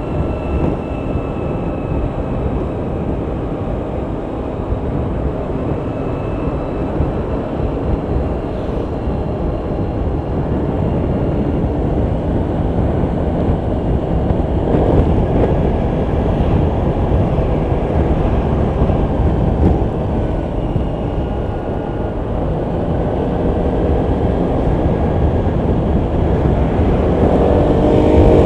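Honda PCX 125 scooter under way: its single-cylinder engine runs steadily under heavy wind and road rumble, muffled by a pocket-worn, wind-shielded mic. The sound grows slowly louder, with a stronger engine note near the end.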